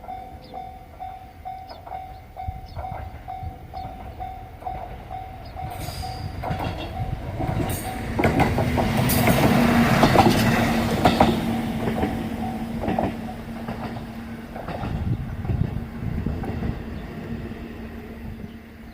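A level-crossing warning bell dings in an even, rapid rhythm while a diesel railcar (a KiHa E130 on this line) approaches and passes. The train is loudest in the middle, its wheels clattering over the rail joints over a steady engine hum. The bell stops shortly after the train has gone by.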